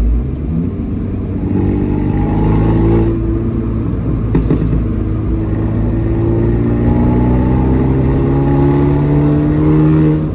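Abarth 124 Spider's turbocharged 1.4-litre four-cylinder, breathing through a 200-cell sports catalyst and a Monza exhaust with its valves wired open, accelerating hard through the gears. The pitch climbs, breaks at a gear change about three seconds in with a sharp crack a second or so later, then rises steadily again.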